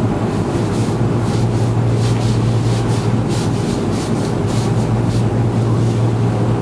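Hands pressing and rubbing along a patient's back and clothing while the spine is palpated for tenderness, heard as irregular soft rustles over a steady low hum.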